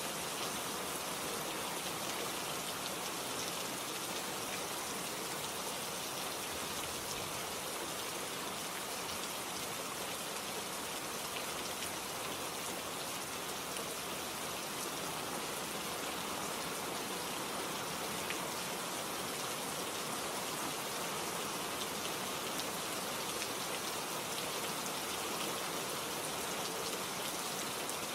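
Steady rain falling: an even hiss with faint scattered drop ticks, holding at one level throughout.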